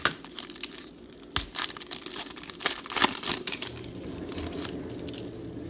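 Foil trading-card pack wrappers being torn open and crinkled in quick, sharp crackles. A steady low hum starts about four seconds in.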